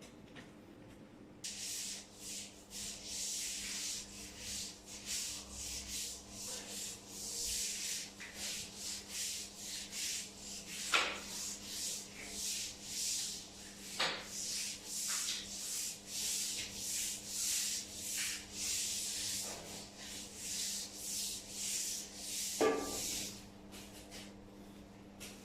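Rhythmic rubbing strokes, about two a second, starting a second or two in and stopping shortly before the end, with a few sharper knocks among them.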